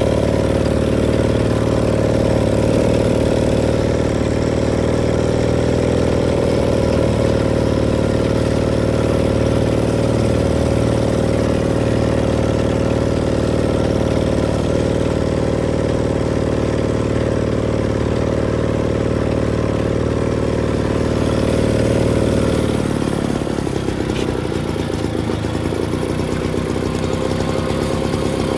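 1956 Rhonson moped's small single-cylinder two-stroke engine running steadily while being ridden, then dropping to a slower idle about 23 seconds in as the moped comes to a stop.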